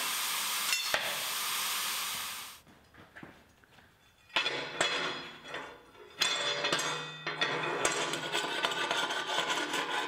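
Steady hiss of a CNC plasma torch cutting steel plate, which cuts off abruptly about two and a half seconds in. After a short lull, cut steel pieces clank and scrape on a steel welding table, then a chipping hammer taps at the slag left on the cut parts near the end.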